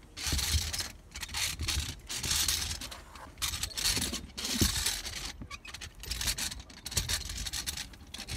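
Scraping and rustling of roofing underlayment as it is pressed, smoothed and tucked into place by hand, coming in several bursts.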